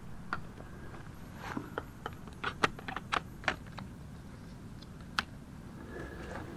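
Handling clicks of a lens change on a DSLR camera on a tripod: the lens being twisted off and a 100 mm macro lens fitted on the bayonet mount. About a dozen short, sharp clicks, most between one and four seconds in and one more about five seconds in, over a faint steady hiss.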